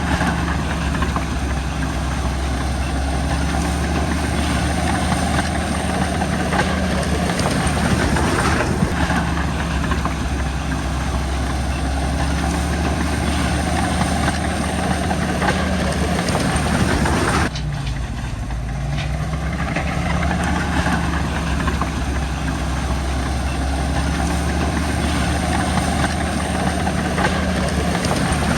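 Komatsu crawler bulldozer's diesel engine running with a steady low drone. Its pitch sags and recovers about a third of the way in, and again a little past halfway after a brief sudden drop in level.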